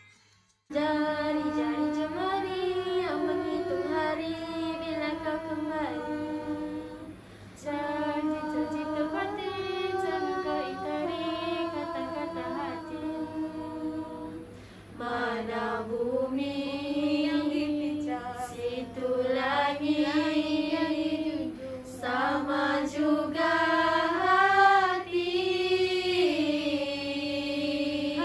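A small group of young women singing unaccompanied in harmony, in long held notes that slide between pitches, starting about a second in.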